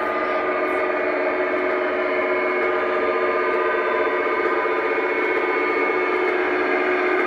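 Several Aristocraft G-scale model diesel locomotives running along the track, making a steady whirring hum of several tones with the rumble of wheels on rail.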